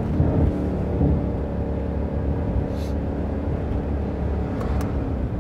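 Mercedes-AMG GLC 63 S's twin-turbo V8 engine and exhaust running steadily under way, a little louder in the first half second, then settling to an even drone.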